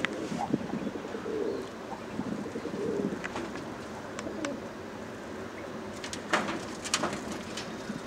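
Fantail pigeons cooing on and off, with a few sharp clicks near the end.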